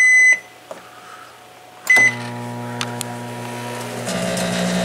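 Rival microwave oven: a keypad beep as a button is pressed, a second short beep about two seconds in, then the oven starts running with a steady electrical hum. Near the end the hum turns louder and harsher with a deeper buzz, the sound of the oven malfunctioning, which the owner reacts to with "That can't be good."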